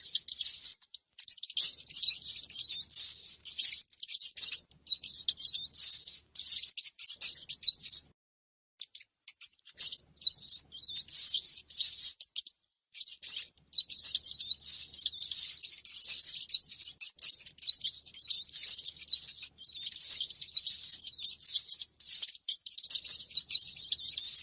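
Rats squeaking: a dense run of quick, high-pitched squeaks, played as a lure to draw rats in. It breaks off into silence briefly about eight seconds in and again about twelve seconds in.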